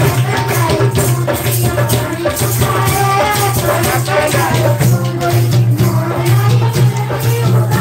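Live Haryanvi village folk music: hand drums, a dholak and a frame drum among them, beaten in a quick dense rhythm with a jangling rattle over it and a wavering melody line.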